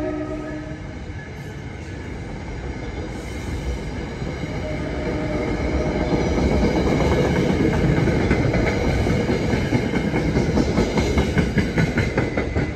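NJ Transit commuter train passing over a street grade crossing. The tail of its horn fades out at the very start, then the rumble of the wheels on the rails builds. In the last few seconds comes a quick regular clickety-clack as the wheels run over the rail joints.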